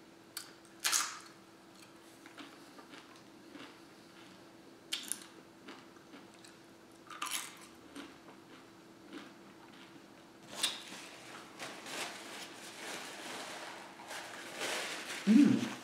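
Tortilla chips bitten with a crisp crunch four or five times, spread a few seconds apart, with chewing in between. Near the end, a cloth napkin rustling against the mouth, then a short, loud, low hum-like voice sound.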